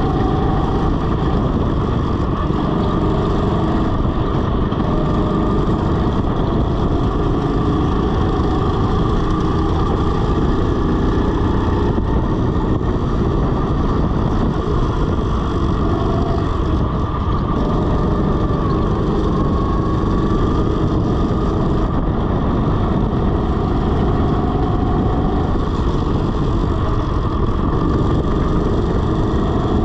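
A go-kart's motor running at speed, its pitch rising and falling through the corners, under heavy low wind buffeting.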